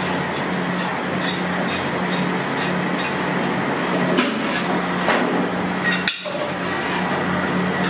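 A knife scraping and striking a fish on a wooden chopping board as it is scaled and cut: repeated short, sharp knocks and scrapes over a steady background hum.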